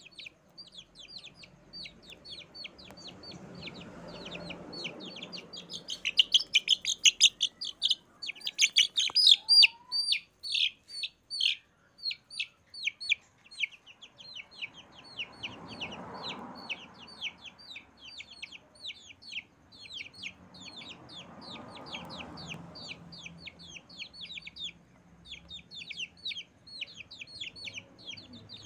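Baby chicks peeping continuously: rapid, short, high downward-sliding peeps several a second, growing louder and denser for several seconds about a quarter of the way in.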